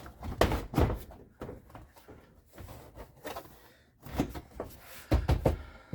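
Plastic door trim panel being pressed and knocked into place on an SUV's rear door: a series of dull knocks and thumps, clustered in the first second and a half and again toward the end, as the panel seats onto its clips.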